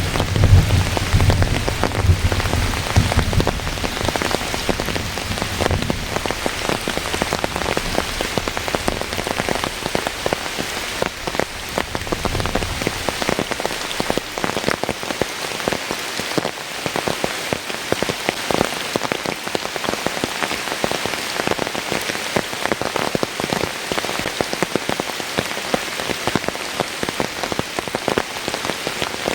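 Heavy rain falling steadily, a dense patter of countless drops striking surfaces. A low rumble of thunder dies away over the first dozen seconds.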